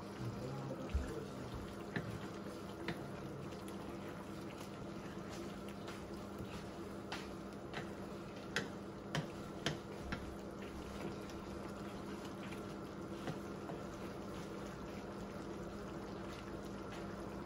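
Chicken liver adobo simmering in a frying pan, a steady bubbling in the sauce over a low hum, with scattered light knocks of a wooden spatula against the pan as it is stirred.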